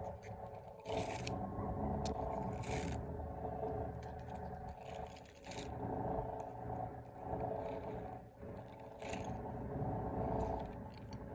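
Scraping and light handling noises from a baitcasting reel and its line being worked by hand to clear a backlash, a few short scrapes spread through, over a steady hum.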